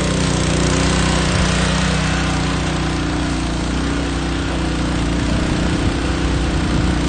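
Small gasoline trash pump engine running steadily under load, pumping pool water to a fire hose, with a steady rushing hiss from the hose spray.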